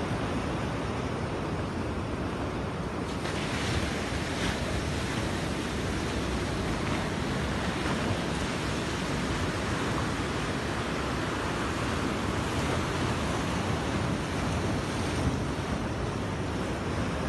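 Sea surf breaking and washing against a rocky shore, a steady rush of water, with wind buffeting the microphone.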